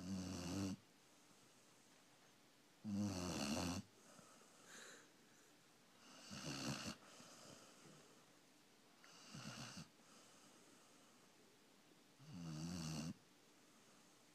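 Dalmatian puppy snoring in its sleep, sounding like a human snore: five rattling snores about three seconds apart, each under a second long, with faint breaths between them.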